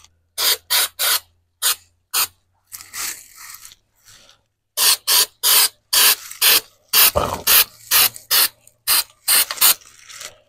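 Rubberized undercoating being sprayed in short bursts, about twenty trigger pulls, several a third of a second apart, with a couple of longer sprays among them.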